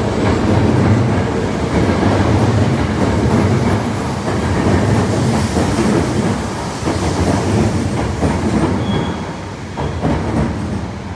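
A Sanyo Electric Railway train pulls into an underground station platform and runs close past, with wheels clattering on the rails and a steady running rumble that echoes in the tunnel. The noise eases a little near the end as the train slows.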